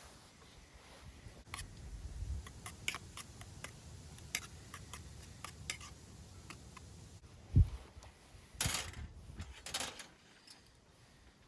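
Scattered light clicks and taps of camp cooking gear being handled, with a dull thump about seven and a half seconds in and two short rustles just after.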